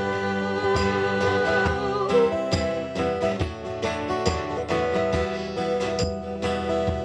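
Live acoustic folk music, an instrumental passage of strummed acoustic guitars keeping a steady rhythm.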